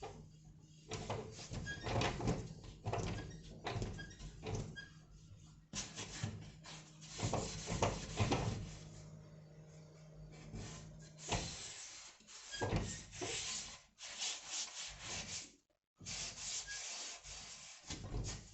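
Irregular rubbing and scraping strokes, some short and some drawn out, from hand work on a surface during canopy repair. The sound cuts out completely for a moment about three-quarters of the way through.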